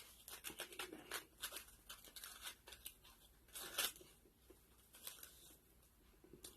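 Faint crackling and crinkling from handling and eating crispy fast food, a run of short crackles with a louder one about three and a half seconds in.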